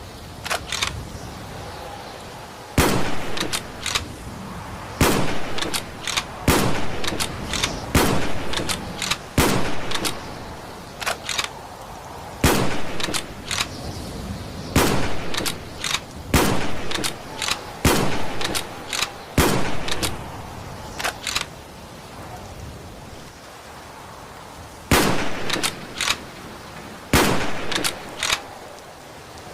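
Mosin-Nagant bolt-action rifle firing about a dozen single shots, one every second and a half to three seconds, with a pause of several seconds past the middle. Each shot rings out afterwards, and shorter clicks fall between some of the shots.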